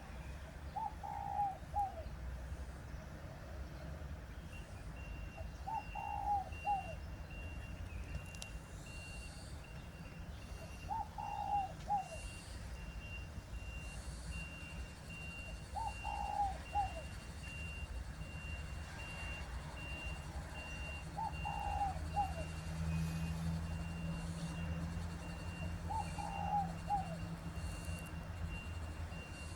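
A dove repeating its short, several-note coo phrase six times, about once every five seconds. A thin steady high tone and a low hum run underneath.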